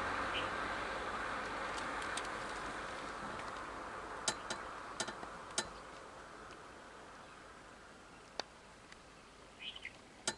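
A steady rushing noise that slowly fades away, with a few sharp clicks in the middle and a short bird chirp near the end.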